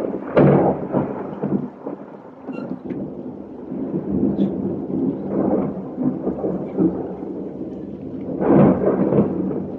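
Thunder rolling and rumbling in waves, loudest about half a second in and again near the end, over steady heavy rain.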